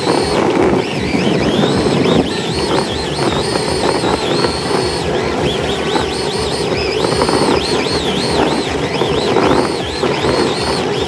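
Electric motors of RC drift cars whining, the pitch rising and falling over and over as the throttle is worked, over a steady rushing noise.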